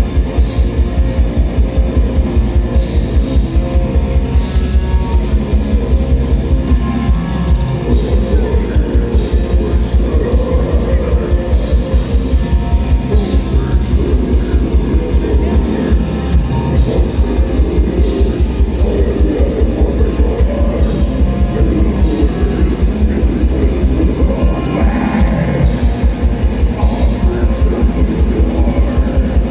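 Metal band playing live: distorted electric guitars and a drum kit, with a fast, steady pattern of kick-drum beats throughout.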